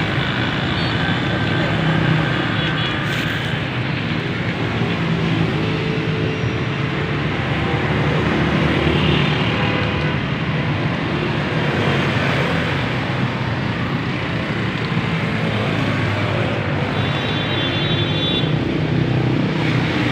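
Steady noise of road traffic, with a brief high-pitched tone near the end.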